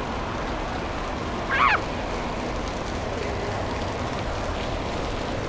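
Steady rushing water and echoing background din of an indoor water park, with one brief high-pitched shout from a voice about one and a half seconds in.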